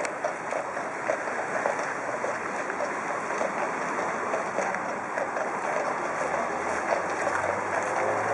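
Steady outdoor street and traffic noise with a light scattered clatter, and a vehicle's low engine sound swelling near the end.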